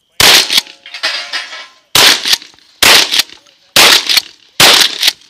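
Twelve-gauge shotgun fired five times in quick succession, the last four about a second apart.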